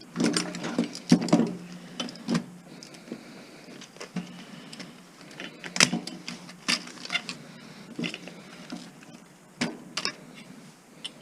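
Irregular clicks, taps and clinks of metal parts and hand tools being handled while a stereo unit is taken apart by hand.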